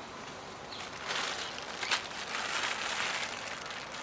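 Clear plastic bag of vegetable peels crinkling and rustling as it is handled, starting about a second in.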